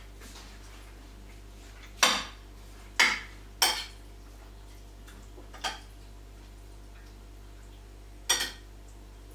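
Sharp clatters of hard objects knocked together, five in all: one about two seconds in, two close together around three seconds, a fainter one, and a last one near the end, over a steady low hum.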